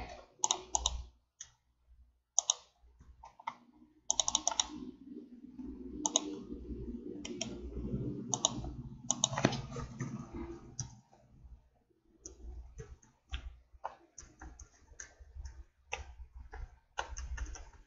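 Computer mouse and keyboard clicks at irregular intervals, single sharp clicks and short clusters, with quiet gaps between.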